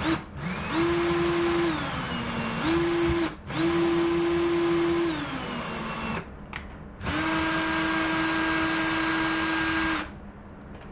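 Cordless drill driving an M4 combination drill-and-tap bit into an L bracket, its motor whining in three runs with short pauses between them. In the first runs the pitch drops as the drill slows under the cutting load, and the last run holds steady for about three seconds before stopping.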